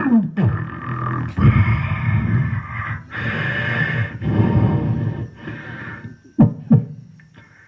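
Beatboxer making vocal sound effects: low growling, rumbling sounds in several stretches, then two quick sharp downward swoops near the end.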